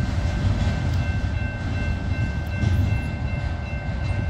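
Freight train rolling past: a steady low rumble of railcars, with a thin high-pitched ringing of several steady tones over it.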